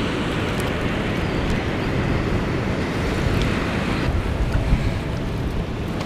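Steady rushing of fast water below a spillway, mixed with wind buffeting the microphone, with a few faint knocks in the second half.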